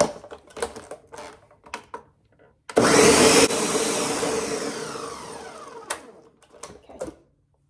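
Countertop blender switched on for under a second on thick ground peanuts, mixing in freshly added salt, then its motor spinning down with a falling whine that fades over about two and a half seconds. Light knocks and clicks from handling the blender jar come first.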